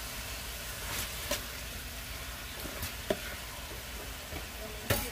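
Sizzling from hot pans on the stove, where kale is sautéing in a stainless steel pan and chicken is frying under a glass lid. The kale leaves are turned by hand, with a few light clicks and a louder knock near the end.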